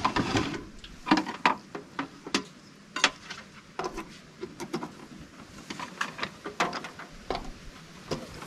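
Scattered light clicks and knocks of handling: a rice cooker's lid clunks shut at the start, then power plugs are fumbled and pushed into a power station's outlet.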